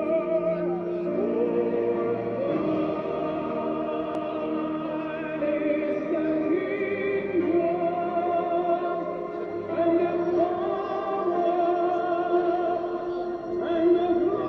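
Music with singing voices, the sung notes wavering with vibrato and held long.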